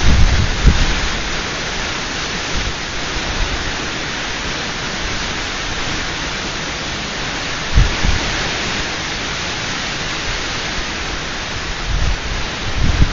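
Steady hiss of heavy thunderstorm rain, with wind buffeting the microphone at the start and again near the end, and one brief low thump about eight seconds in.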